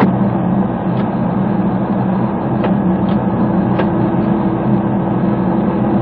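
Steady low machinery hum with a few faint clicks.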